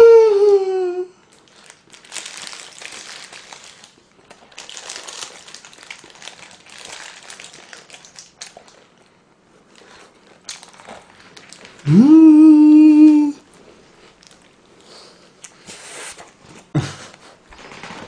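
A man chewing food with closed-mouth smacking and crinkling sounds, broken by two loud hummed "mmm" sounds of enjoyment. One comes at the start, rising then falling, and a steadier one comes about twelve seconds in.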